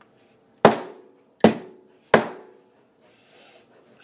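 Three hard thumps on a tabletop, less than a second apart, each dying away quickly.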